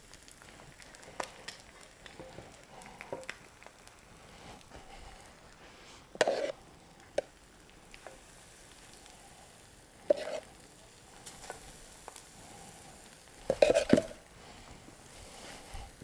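A sourdough pancake frying in a pan with the eggs, sizzling quietly in the bacon fat. A few louder knocks from the pan or a utensil come about 6, 10 and 14 seconds in, the last the loudest.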